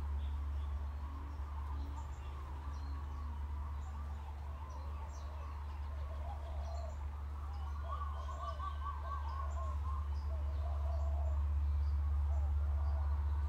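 Birds chirping, with short warbling song phrases about two thirds of the way in and again near the end, over a steady low hum.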